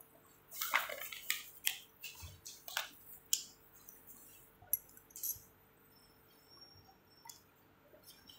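Green chillies deep-frying in hot oil in a kadhai, held in a wire-mesh strainer: irregular crackling and popping of the oil, thick for the first few seconds, then thinning to scattered pops after about five seconds.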